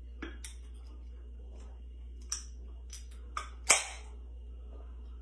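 Aluminium can of Mountain Dew being shotgunned: a few light clicks and taps on the can held at the mouth, then, a little past halfway, one loud crack and a short fizz as the pull tab is snapped open.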